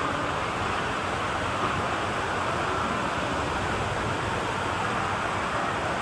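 Steady, even din of an indoor water park: running and splashing water and distant crowd noise blended into one continuous rush.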